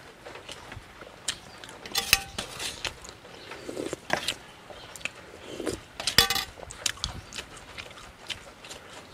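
Close-up eating sounds: a man chewing and lip-smacking a mouthful of frog curry eaten by hand, a run of short wet clicks and smacks. Two louder, sharper clinks stand out, about two seconds in and again about six seconds in.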